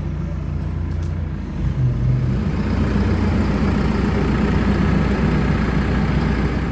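Tractor diesel engine running steadily, getting louder about two seconds in as it picks up revs.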